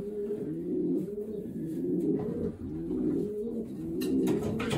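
Racing pigeons cooing in a loft: several birds at once, overlapping low coos repeating about once a second. A few light knocks near the end.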